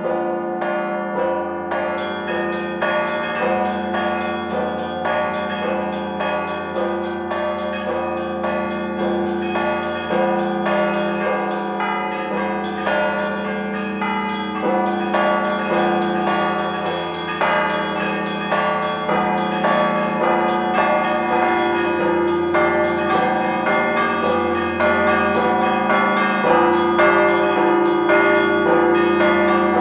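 Orthodox-style chiming of several bronze church bells of different sizes: one ringer pulls the clapper ropes to strike them in a rapid, continuous pattern. A deep hum from the large bells rings on under the quick strikes of the smaller ones.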